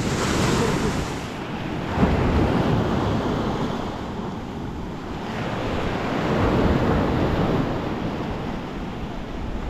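Small sea waves washing onto the shore, swelling and easing every few seconds, with wind rumbling on the microphone.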